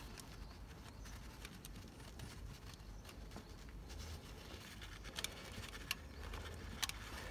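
A few faint, scattered light clicks as a small screwdriver picks at the valve keepers under a compressed valve spring, over a low steady background rumble.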